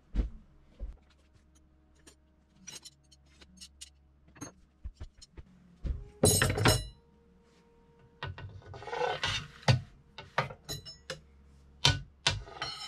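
Steel rods being handled and set against the belt printer's frame to weight and tension its belt: scattered clicks and knocks, a louder metallic clatter about six seconds in, rubbing and sliding a few seconds later, and a ringing metal clink near the end.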